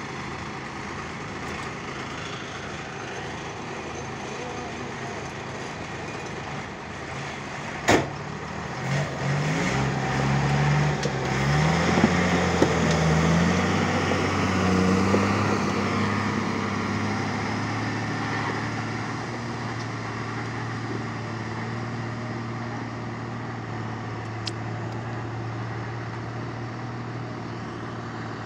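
Diesel tipper truck loaded with rock pulling away: a single sharp bang about eight seconds in, then the engine revving up through its gears, loudest a few seconds later, and slowly fading as the truck drives off.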